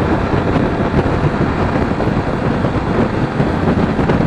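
Sinnis Terrain T125's 125cc single-cylinder engine running steadily while riding, with wind noise on the microphone. Freshly serviced, with a new chain fitted, the bike is running sweet.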